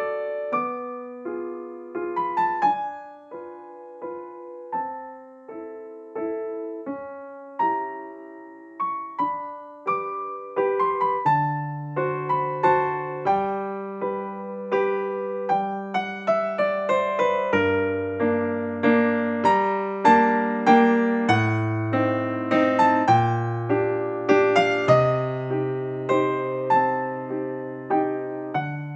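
Background piano music: a gentle melody of single struck notes over changing chords, with low bass notes joining about eleven seconds in.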